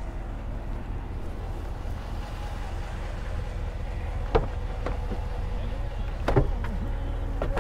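Pickup truck engine idling with a steady low hum. A sharp click comes about four and a half seconds in as the rear door handle is pulled and the latch opens, and a second knock about two seconds later.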